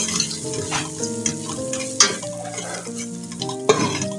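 A spoon stirring and scraping in a pot of sizzling onion, pepper and crayfish, with sharp clicks of the spoon against the pot, the loudest about two seconds in and near the end. Background music with a slow melody plays throughout.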